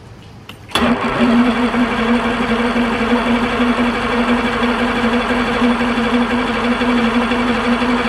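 Starter of a 2000 Evinrude 225 FICHT V6 outboard cranking the engine on a jump pack. A click about a second in, then a steady whirring that does not rise or catch: a hard start on a battery that read only 11.5 volts.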